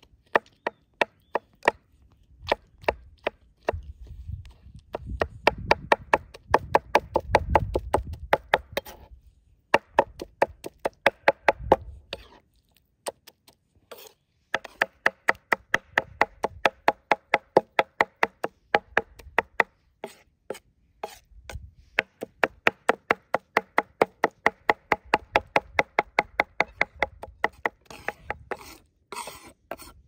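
Chef's knife rapidly chopping ripe tomatoes on a wooden cutting board: quick, even knocks of the blade on the wood, about four a second, in runs broken by short pauses.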